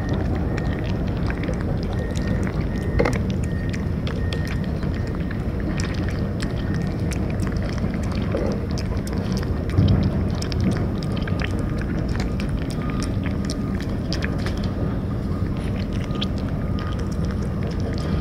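Steady low rumble of wind buffeting the microphone outdoors, with many small quick clicks scattered over it.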